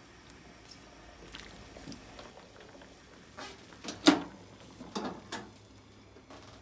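Kitchenware being handled during cooking: a scattered series of short knocks and clinks, the loudest about four seconds in with a brief ring.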